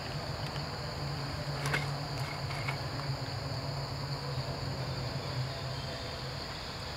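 Steady chorus of insects, a continuous high-pitched drone, over a low steady hum, with a few faint clicks about two seconds in.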